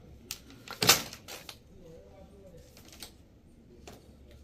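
A handful of sharp knocks and clacks, the loudest about a second in and a few lighter ones later, over faint background voices.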